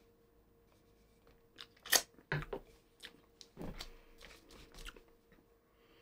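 Scattered sharp clicks and light knocks, the loudest about two seconds in, from a beer can and glasses being handled on a table before the pour, over a faint steady hum.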